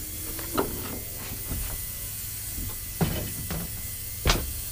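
Plastic-deck lawnmower being turned round and set down on a workbench: a few knocks and bumps, the sharpest near the end, over a steady hiss.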